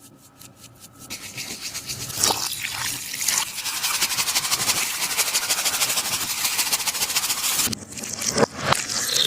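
A taba squishy being squeezed and rubbed by hand, giving a dense, fast crackling and scratching. It is faint at first, grows louder after about a second, and breaks into a few separate sharp crackles near the end.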